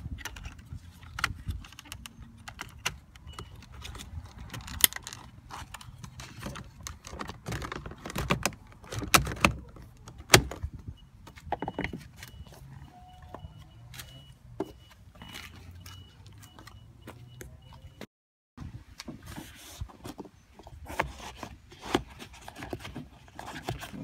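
Scattered clicks, taps and scrapes of hands handling the plastic door trim, armrest pocket and wiring of a car door, coming at irregular intervals.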